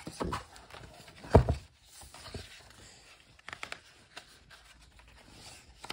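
Handling noise from a picture book as its page is turned: paper rustling, a dull thump about a second and a half in, and a few light clicks a little after halfway.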